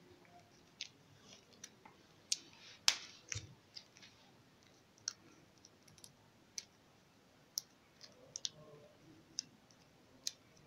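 Scattered sharp clicks and ticks, about a dozen at irregular intervals, the loudest about three seconds in, from stiff electrical wires being handled and twisted together by hand at a computer power supply's wire bundle.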